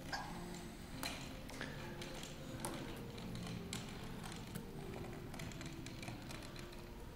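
A series of sharp, irregular clicks and taps, roughly one or two a second, over faint background music with held low notes.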